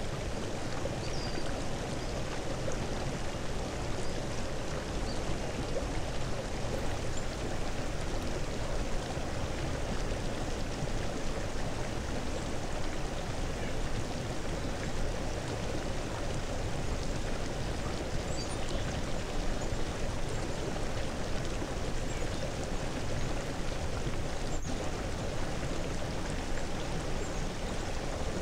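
Steady, even rushing noise like a flowing stream.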